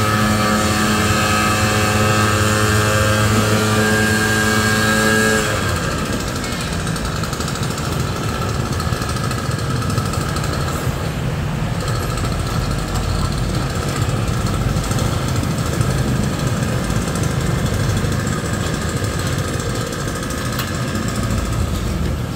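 A nearby motor vehicle engine runs with a steady pitched hum and stops abruptly about five seconds in, leaving a rough, low rumble of road traffic.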